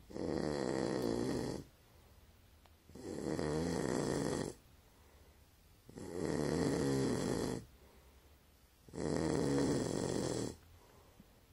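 An animal snoring loudly in a steady rhythm: four long snores, each about a second and a half, roughly every three seconds.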